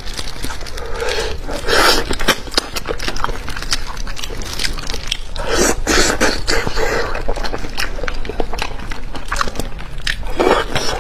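Close-miked eating of a fatty fish head: wet chewing, lip smacks and sharp clicks, with three longer, louder sucking sounds, about two seconds in, in the middle, and near the end.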